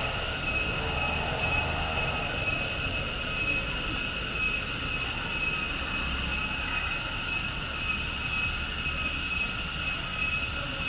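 Cicadas droning: a steady, high, shrill buzz that pulses about once a second.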